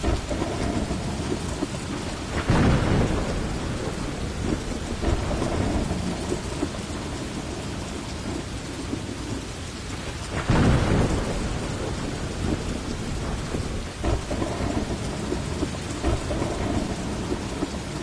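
Heavy rain falling steadily, with two rolls of thunder, about two and a half seconds in and again about ten seconds in.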